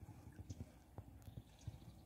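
Faint, irregular soft knocks and small clicks of a wet cast net being handled and gathered in river water.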